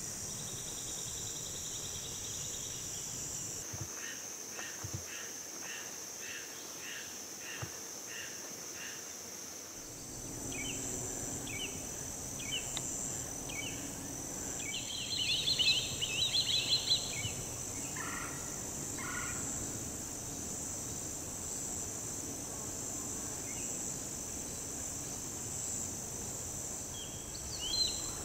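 Steady high-pitched insect drone with bird calls over it. A run of evenly repeated notes comes first, then a louder, rapid chattering call about halfway through and a few lower notes after it.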